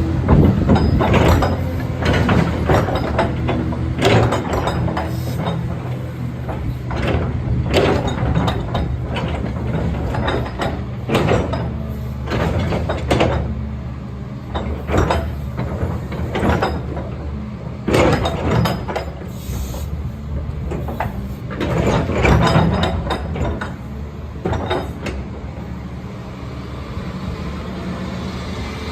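Caterpillar 325C excavator working: its diesel engine runs steadily under irregular metallic clanks and knocks, coming about once or twice a second.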